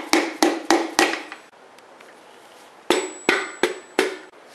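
Piston being tapped down through a ring compressor into the cylinder bore of a Chrysler 440 big-block with the butt of a mallet handle: a quick run of about five light taps, a pause of under two seconds, then four more taps.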